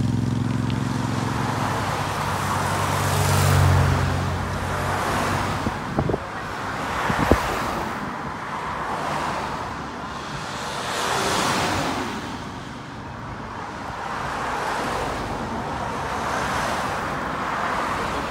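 Race convoy vehicles passing one after another on a country road: a motorcycle engine drone for the first few seconds, then cars, an ambulance and team cars swelling in and fading out every couple of seconds with tyre and engine noise. Two sharp clicks near the middle.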